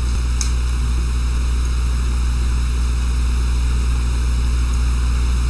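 Steady, loud electrical hum and buzz, with a faint click about half a second in. It is the abnormal noise in the audio setup.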